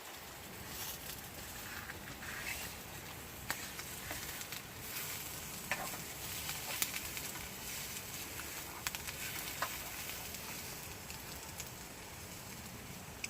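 Eggs and mushrooms sizzling as they fry in a pan, a steady hiss with a few sharp clicks scattered through it.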